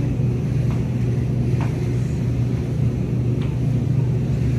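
Steady low hum, with a few faint taps as the legs of a metal walker are set down on the floor.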